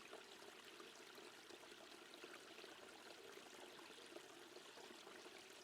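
Near silence: a faint, steady background of flowing water, like a quiet stream.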